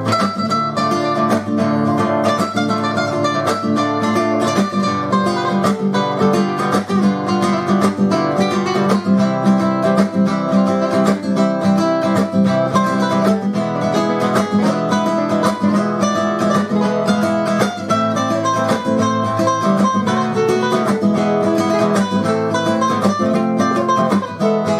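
Two nylon-string acoustic guitars playing an instrumental passage together in a rumba rhythm, strummed chords with picked notes over them.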